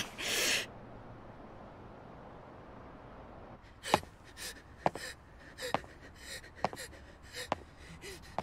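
A short, sharp gasp-like breath at the start, then footsteps on a hard corridor floor from a few seconds in, roughly one step a second.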